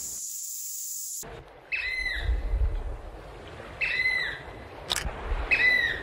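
A high steady insect hiss that cuts off about a second in, then three loud piping calls of a variable oystercatcher about two seconds apart, each a short arched note, over a low rumble of background noise.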